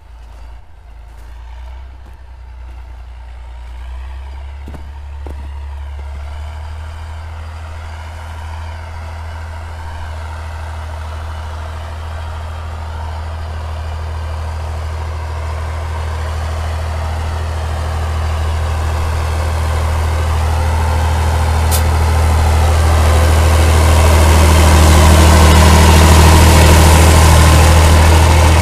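KhTZ T-150K tractor's diesel engine running under load while pulling a tillage implement across a field. It grows steadily louder as the tractor approaches and is loudest as it passes close by near the end.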